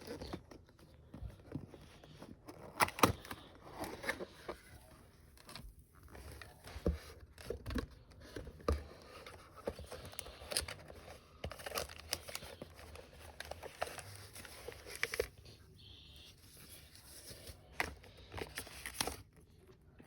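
A keyboard being unboxed: cardboard and plastic packaging rustling, crinkling and tearing, with scattered handling knocks and clicks.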